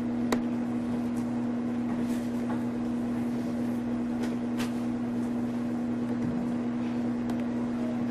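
A steady low hum holding one pitch, with a fainter tone an octave below it, and a few faint light clicks over it.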